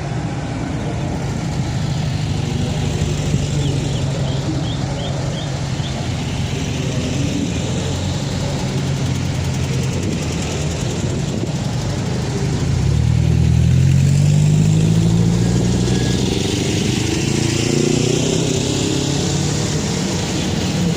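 Car engine running steadily, then rising in pitch as it accelerates about twelve seconds in, and climbing again a few seconds later.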